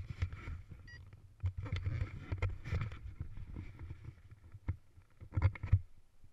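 Irregular knocks, rubbing and low rumble on a body-mounted action camera jostled as its wearer moves about, with a burst of louder knocks near the end before it suddenly falls quiet.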